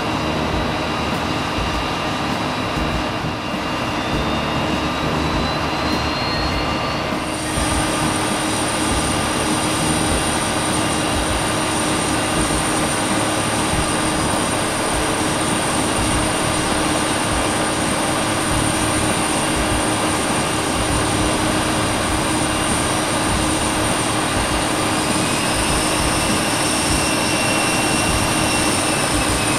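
Airbus A320 jet engines running, heard from inside the cabin: a steady rush with a constant hum and whine. About seven seconds in, the sound gets a little louder and a high steady whine comes in. A fainter tone rises and falls near the end.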